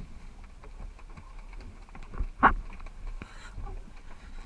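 Scattered light clicks and knocks over a low rumble, with one louder, sharp knock about two and a half seconds in.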